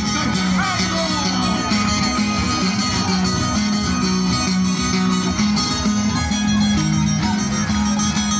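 Andean pumpin music led by guitars, playing steadily and loud for the dance.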